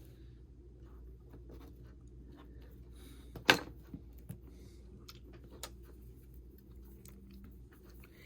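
Faint scratching and small clicks of hands and tools working on an iPhone 6 during a battery replacement, with one sharper click about three and a half seconds in, over a low steady hum.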